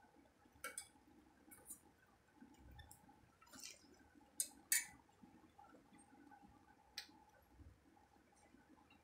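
Close-up eating sounds of dal and rice: scattered sharp clicks and smacks, the two loudest close together about four and a half seconds in, over a faint steady hum.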